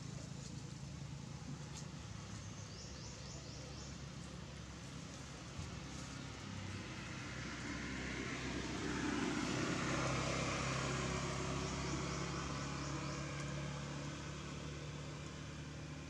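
Outdoor background noise: a steady low hum, with a broad rushing sound that swells through the middle and fades again.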